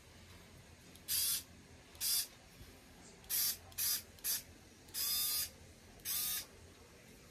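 SKIL 4V cordless screwdriver's small electric motor run with no load in seven short trigger bursts, each a quarter to half a second long, with a short glide in pitch as it starts and stops. The tool has no speed control, so every burst runs at the same single speed.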